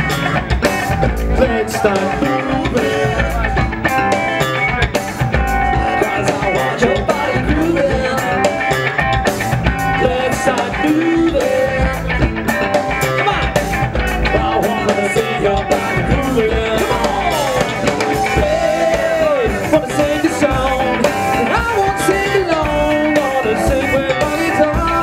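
Live band playing a song, with sung vocals over electric bass guitar and a drum kit.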